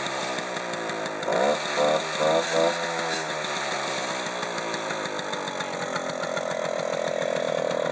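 Simson SR2 moped's small two-stroke single-cylinder engine warming up, heard at the exhaust: running with three quick throttle blips about a second and a half in, then the revs climbing and held higher near the end.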